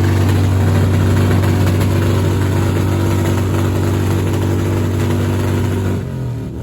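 Motorcycle engine held at high revs in a rev-off, a loud steady note for about six seconds; the revs dip briefly near the end and then climb back.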